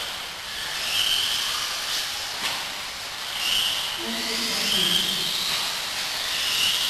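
Radio-controlled off-road buggies running on an indoor dirt track: a high-pitched motor whine that surges and fades every second or so as the cars accelerate and pass, over a steady hiss.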